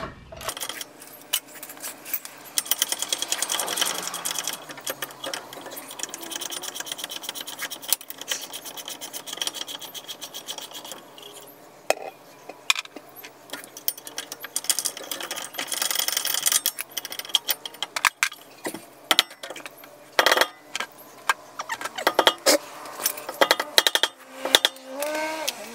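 Hand ratchet wrench clicking in long quick runs as the bolts of a car's rear brake caliper are backed out, followed by scattered metal clanks and knocks of tools and brake parts near the end.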